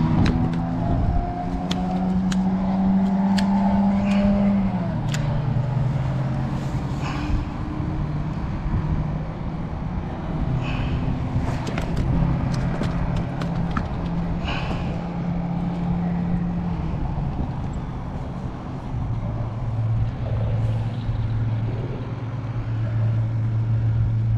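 A steady engine drone whose pitch steps down several times, with scattered light clicks and taps over it.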